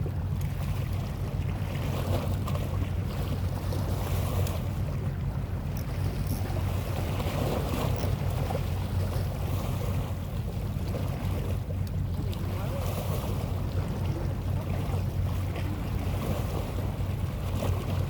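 Boat engine running at a steady low hum, with wind buffeting the microphone and water noise over it.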